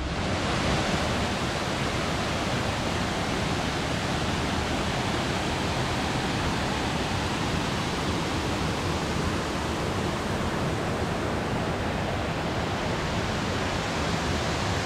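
Waterfall running: a steady, full rush of falling water that begins suddenly and holds even.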